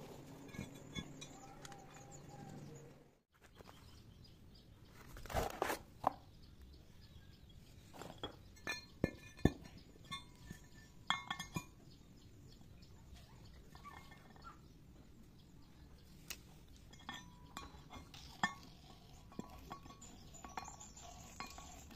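Steel parts handled and set down on a concrete floor: irregular metallic clinks and knocks, most of them a few seconds in, then sparser light taps as a grinding stone is fitted onto a round steel plate.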